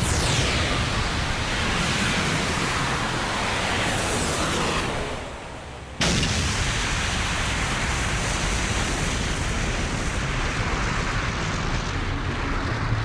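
Animation sound effects of an object plunging in from space: a rushing whoosh that falls in pitch and fades, then a sudden explosion about six seconds in as it strikes a mountainside, followed by a continuing roar of noise from the blast.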